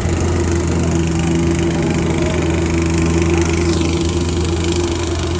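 Small Yanmar compact tractor's diesel engine running steadily at constant speed, close by.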